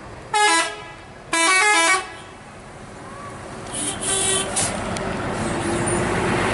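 Tour bus's musical 'telolet' horn sounding twice, a short blast then a longer one, each stepping quickly through several notes. Then the coach's engine and road noise grow louder as it passes close.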